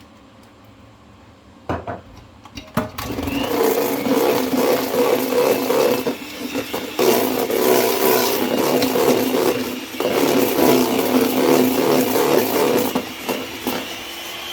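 An electric hand mixer beating the egg-yolk and mascarpone cream in a bowl. A couple of knocks come about two seconds in, then the mixer starts about three seconds in and runs steadily and loudly, easing off near the end.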